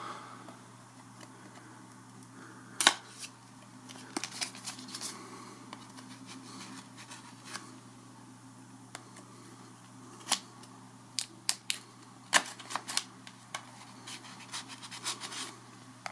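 A small knife blade scraping and picking at plastic shrink-wrap on a cardboard box, in irregular sharp clicks and scratches, the loudest about three seconds in. A faint steady low hum sits underneath.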